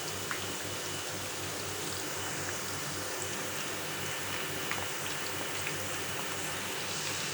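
Chicken pakoras deep-frying in hot oil: a steady sizzling hiss with scattered small crackles.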